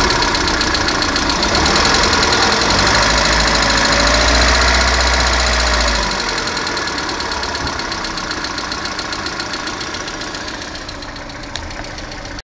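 Lada Kalina's 1.4-litre 16-valve four-cylinder engine running with a fast, regular knock, the fault the owner is documenting. Its speed rises and falls briefly around the middle, then the sound slowly grows quieter and cuts off just before the end.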